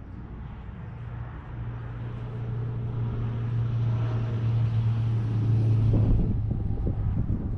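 A vehicle engine running at a steady note, growing louder for about six seconds as it draws closer, then giving way to irregular rattling near the end.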